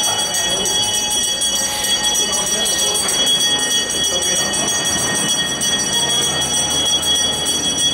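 A bell ringing steadily and continuously, with several high ringing tones over the voices of the crowd. It is the bell that signals the tuna auction.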